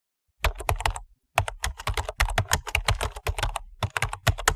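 Computer keyboard being typed on: a fast run of key clicks, with a short pause about a second in.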